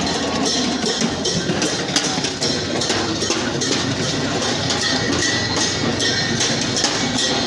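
Music with a steady percussive beat, about two knocks a second.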